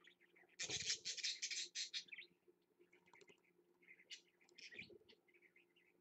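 Budgerigar nestlings cheeping softly in a nest box, with one loud raspy burst lasting just over a second about half a second in, followed by short scattered chirps.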